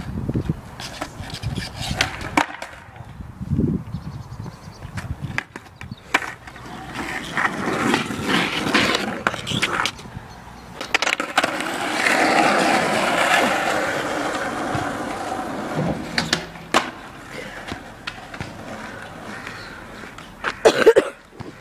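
Skateboard rolling over tarmac, with many sharp clacks and knocks of the board hitting the ground. The rolling grows louder for a few seconds around the middle as the board passes close by.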